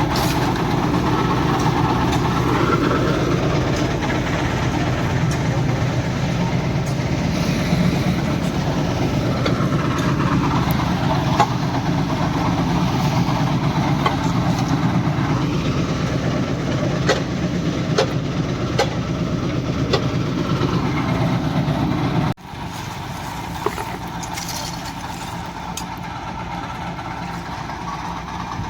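Engine of construction machinery running steadily, with a cyclic sweeping sound and scattered sharp knocks and clinks. About two-thirds of the way through it cuts abruptly to a quieter run of the same engine sound.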